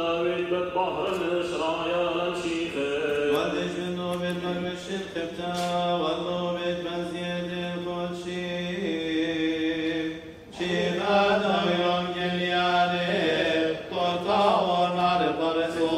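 Liturgical chant of the Assyrian Church of the East, sung in Syriac by male clergy: a melody moving over a steadily held low note, with a short break about ten seconds in.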